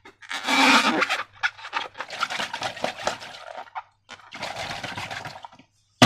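Slime being handled and squished by hand: irregular wet crackling with many small pops, coming in three spells with short pauses between, and one sharp click at the very end.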